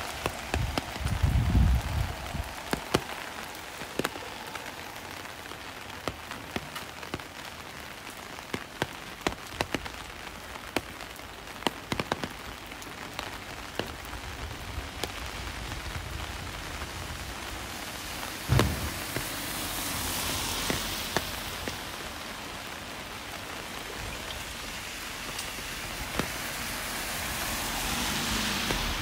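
Steady rain, with many sharp drops clicking close to the microphone. There are low thumps about a second in and again about two-thirds through, and a hiss that swells and fades twice in the second half.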